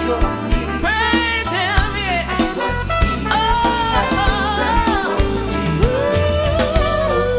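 Background music with a steady beat, a bass line and a wavering lead melody.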